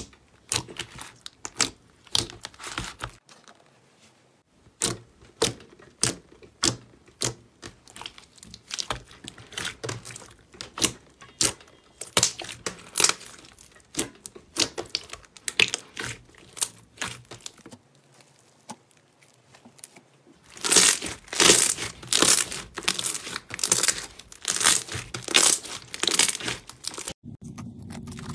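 Hands kneading and pressing a glossy slime, making sticky clicks and pops as trapped air bursts. The pops come irregularly and grow denser and louder in a flurry near the end.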